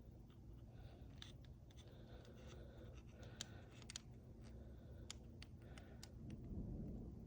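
Near silence with a dozen or so faint, sharp clicks and light scraping scattered through it: a measuring tool being handled against the engine's parts, over a low steady hum.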